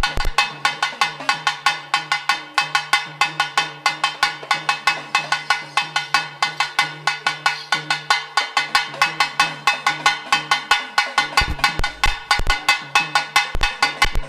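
Folk drum and ringing metal percussion playing a fast, even beat of about seven strokes a second, each stroke with a bright metallic ring, over a low steady tone.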